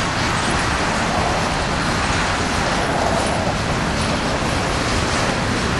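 Empty covered hopper cars of a freight train rolling past, a steady noise of steel wheels running on the rails.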